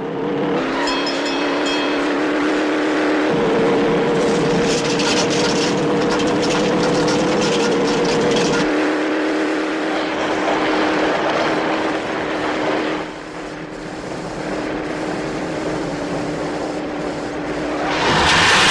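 Semi truck and car engines running hard at highway speed, a steady droning hum. Near the end a loud rushing noise starts.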